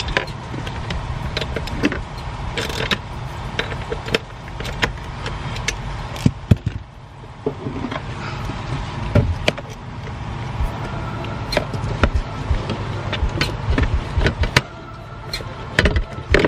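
Scattered clicks and knocks of hand work on a car battery: a ratchet on a battery terminal clamp, then the plastic battery cover being handled near the end, over a steady low hum.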